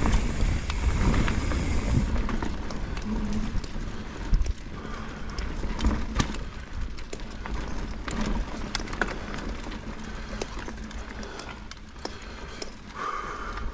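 Mountain bike riding over a rough dirt trail: irregular knocks, clicks and rattles of the bike over bumps, with wind rumbling on the microphone for about the first two seconds.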